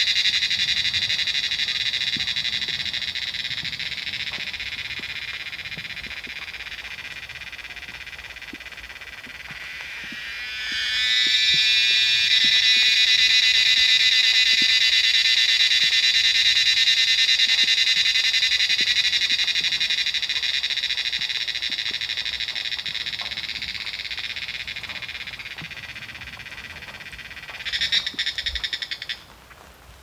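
A large chorus of cicadas calling: a high, continuous buzzing cacophony. It fades down, swells back up loud about a third of the way in, and then fades again. Near the end a short last burst cuts off suddenly.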